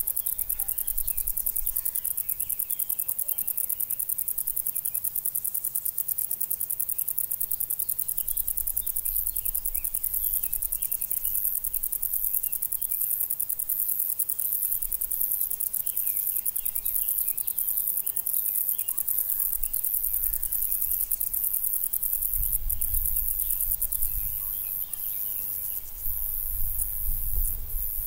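Crickets chirping steadily in a meadow, a dense high-pitched trill made of rapid pulses, with scattered short chirps mixed in.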